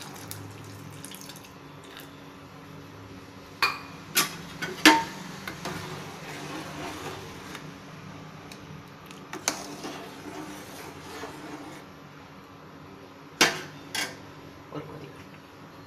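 Metal ladle knocking and scraping against a metal cooking pot while a milky rice-dumpling pudding is stirred: a cluster of three sharp clinks a few seconds in, one near the middle and two more near the end, over a low steady background.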